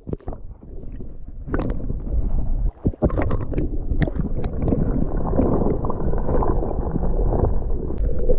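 Water churning and gurgling, heard muffled through a camera microphone under water. A few knocks and clicks in the first second or so, then a dense, steady rumble from about a second and a half in.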